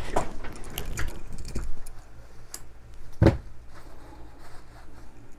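Small clicks and taps of a folding knife being handled, with one louder, sharp click about three seconds in.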